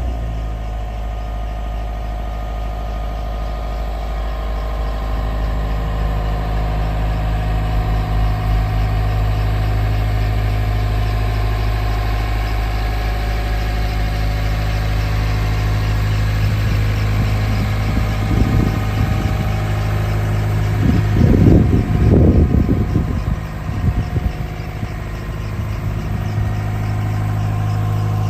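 Caterpillar 305.5E mini excavator's diesel engine running steadily, with a stretch of louder, uneven sound about eighteen to twenty-four seconds in.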